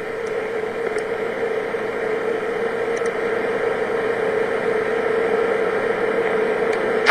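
A steady hum: one constant mid-pitched tone over an even hiss, growing slightly louder.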